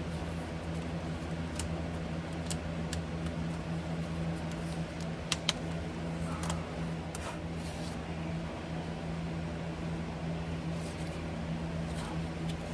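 A steady mechanical hum with scattered light clicks and taps from parts being handled during a PTO install, the loudest being two sharp clicks in quick succession about five and a half seconds in.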